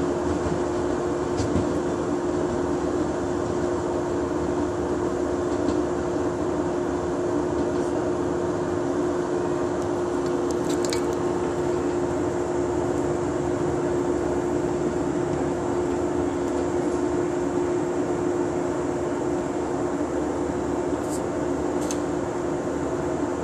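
A JR 103-series electric train standing at the platform, its onboard equipment humming steadily with one strong, even tone. A few faint, short high ticks come now and then.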